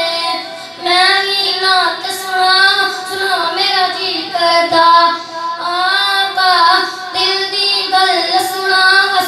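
A boy singing a naat, an unaccompanied Islamic devotional hymn, in long held melodic phrases whose pitch bends and wavers.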